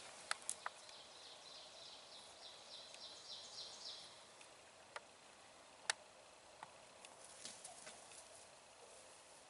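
A songbird trilling faintly: a rapid run of evenly repeated high notes lasting about three seconds. Several sharp clicks or snaps come around it, the loudest about six seconds in.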